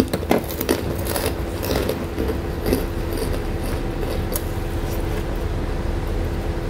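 Keropok cracker being crumbled by hand over rice, then crunching as it is eaten, heard as many short crisp crackles. A steady low hum runs underneath.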